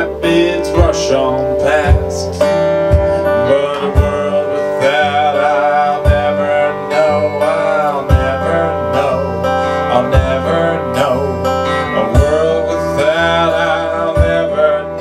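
Live acoustic guitar strummed with a suitcase kick drum thumping about once a second, and a man's voice singing over it.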